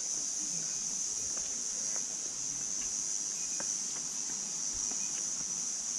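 Steady high-pitched chorus of insects, a continuous shrill drone without breaks, with a few faint scattered clicks beneath it.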